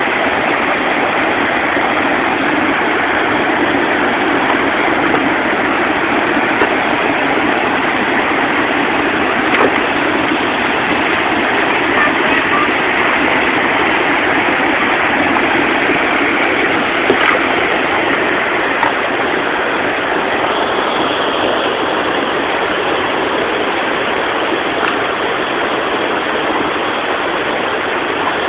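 Water rushing steadily over a low river weir.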